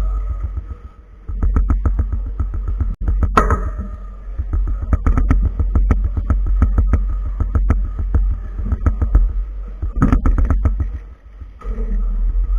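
A plastic 4x4 speed cube being handled and turned fast: dense, quick clicking and clattering of its layers, with low thumps carried through the table. There is one sharp knock about three seconds in.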